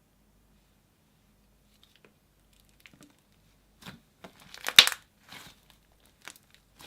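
Slime being pressed and squished by hand: a quick cluster of short crackling squishes about four to five and a half seconds in, loudest near five seconds, then two more near the end.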